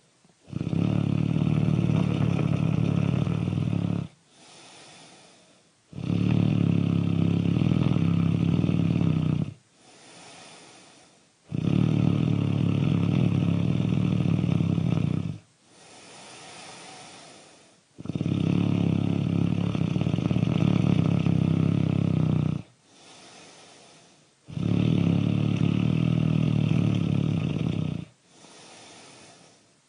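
Loud, regular snoring: five long, low, buzzing snores, each about three and a half seconds, recurring about every six seconds, with a much quieter breath out between them.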